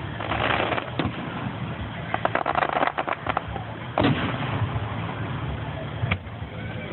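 Aerial firework shells bursting. There is a sharp bang about a second in, then a quick run of crackling reports around two to three seconds, a loud boom with a rolling tail about four seconds in, and another bang near the end.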